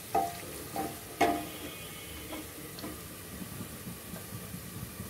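Wooden spatula stirring frying onions in an aluminium pressure cooker, knocking against the pot three times in the first second and a half with a brief metallic ring, over the low sizzle of onions browning in oil.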